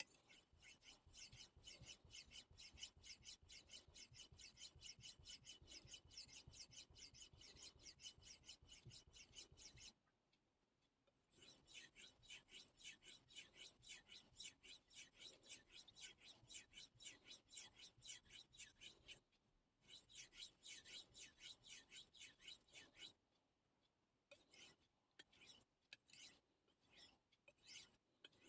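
A Miyabi gyuto kitchen knife blade being stroked back and forth on a Suehiro whetstone: quick, even rasping strokes about four a second, in runs broken by short pauses, turning to slower, scattered strokes near the end.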